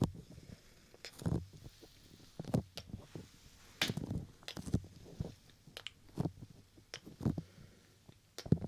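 Close-up ASMR sounds picked up by a 3Dio binaural microphone: soft, irregular pops and rustles, about one every second.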